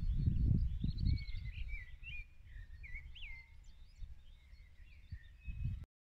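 Small birds singing, a string of short chirps and warbles. A low wind rumble on the microphone is strong for the first second or so, fades, and returns briefly near the end, and the sound cuts out abruptly just before the end.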